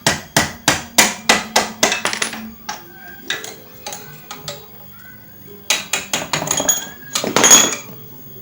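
Hammer striking metal in quick runs, about three or four blows a second, while parts of a motorcycle's rear suspension linkage are being knocked loose. The blows come in a burst at the start, then a few scattered knocks, then a second flurry near the end, followed by a louder, longer clatter.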